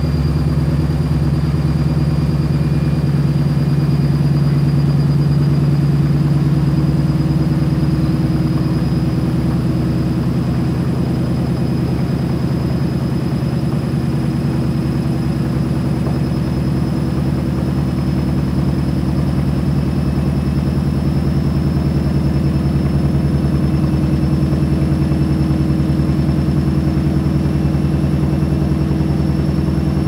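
Gorenje SensoCare washing machine running a service-mode test: the drum turns steadily with water swirling inside, giving a steady motor hum and a faint high whine that creeps slightly higher.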